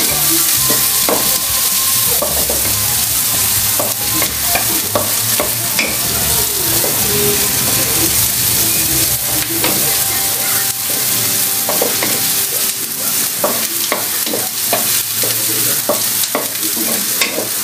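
Garlic, ginger and onion sizzling in hot oil in a wok, stirred with a wooden spatula that scrapes and knocks against the pan. The scraping strokes come thicker in the last few seconds.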